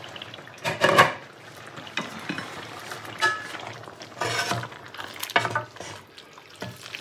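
Wooden spoons stirring a thick vegetable sauce in a metal pan, with irregular scrapes, knocks and wet squelches against the pan; the loudest clatter comes about a second in.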